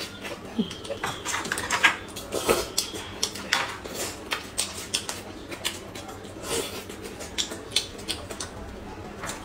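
Close-miked eating sounds: mouth smacks and chewing of a steamed bun, with a plastic spoon scraping and tapping inside a yogurt cup, making an irregular run of small clicks.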